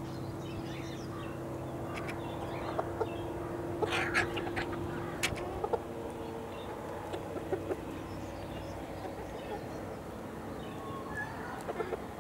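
A flock of chickens and roosters clucking and calling in short notes, busiest around four to six seconds in. A steady low hum lies underneath and fades out about halfway through.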